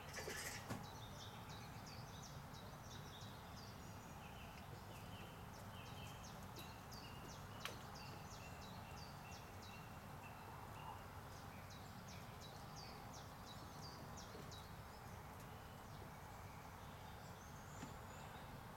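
Small birds chirping and calling over and over, faint against a steady low outdoor background noise, with a couple of soft knocks at the start and a single sharp click about eight seconds in.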